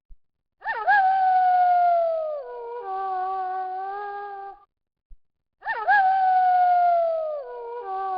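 Wolf howling, heard twice about five seconds apart. Each howl is a quick rise into a long, slowly falling note that settles into a steadier lower note.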